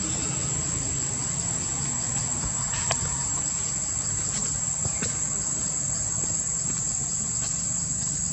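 Steady high-pitched insect drone from the surrounding trees, unbroken throughout, with a low steady hum underneath.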